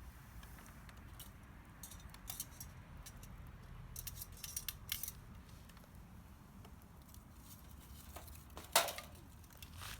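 Scattered light clicks and clinks of small objects being handled: a cluster of them a few seconds in, then one sharper clink near the end, over a low steady rumble.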